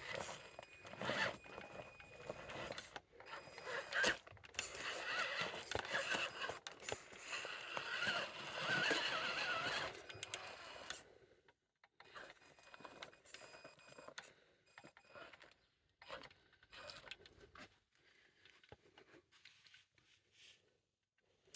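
Small electric RC crawler driving over rough ground: its motor whirs while the tyres and chassis scrape and crunch over rock. It is busiest for about the first eleven seconds, then turns to quieter, scattered scrapes.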